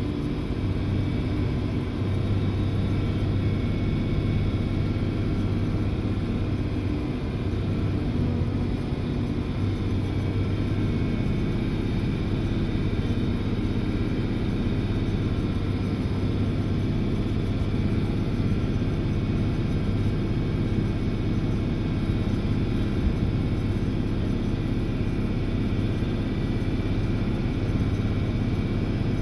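John Deere 4055 tractor's six-cylinder diesel engine running steadily under load, heard from inside the cab, with a PTO-driven New Holland forage chopper running behind it as it chops wheat straw. The drone holds an even, deep hum with no changes in speed.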